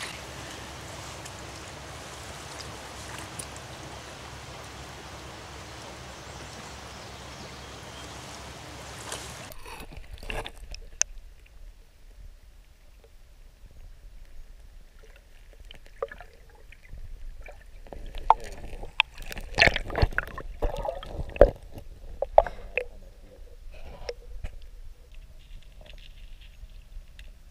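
Steady rush of a flowing stream, then an abrupt change about nine seconds in to muffled sound from a camera submerged in the stream: water gurgling, with scattered sharp clicks and knocks, thickest and loudest a little past the middle.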